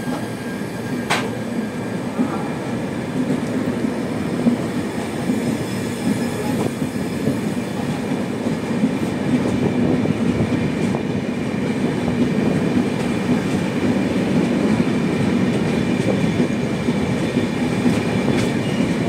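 Express train coaches passing close by at speed: a steady rumble of wheels on rail with some clickety-clack. There is one sharp click about a second in.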